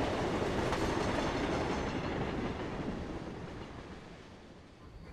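Train running on rails: a steady rush of wheel and track noise that fades away over the last two seconds.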